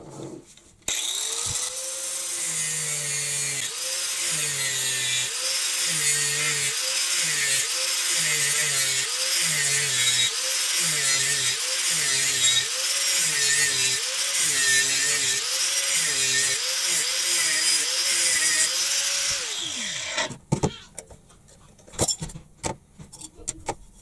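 Angle grinder with a cut-off disc cutting through the steel casing of an oil filter. Its motor pitch dips and recovers about once a second as the disc bites. It starts about a second in, winds down about twenty seconds in, and is followed by a few knocks.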